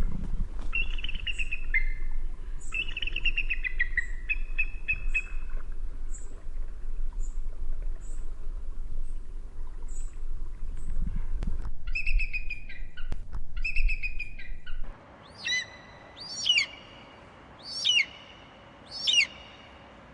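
Eagle calls: a run of high, chattering whistled calls over a low background rumble, then, after an abrupt change of recording, four loud, sharp calls about a second apart over a quiet background.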